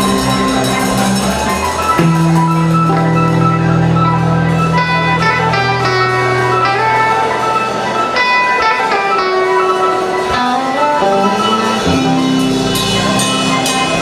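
Live band playing a funky soul groove: electric guitar and drums, with Hammond organ chords held in long notes.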